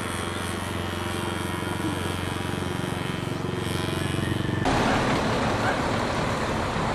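Small foam RC model airplane's motor and propeller buzzing steadily. About two-thirds in, the sound switches abruptly to a louder, rough rushing noise.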